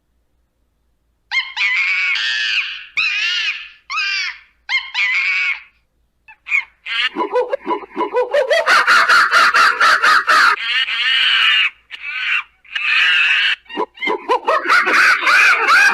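Monkeys screaming: after about a second of silence, a handful of separate high, wavering screams, then a fast run of short chattering cries from about halfway that builds into near-continuous screaming.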